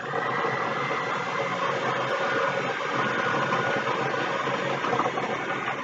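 Electric stand mixer running steadily, its beaters creaming butter and shortening in a glass bowl; a little loud.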